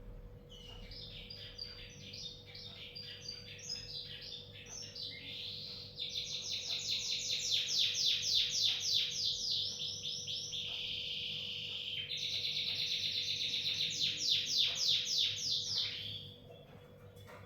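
Lovebird chattering: rapid strings of shrill chirps that grow louder about six seconds in and stop shortly before the end.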